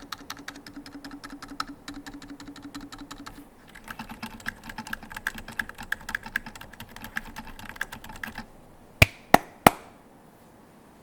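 Fast typing on a mechanical keyboard with a brass plate in a KFE CE case, fitted with Holy Boba Franken switches (Outemu milk stems in CIY housings, 68 g springs) and DCS keycaps: a quick run of clacking keystrokes with a brief pause. Near the end, three much louder sharp clacks.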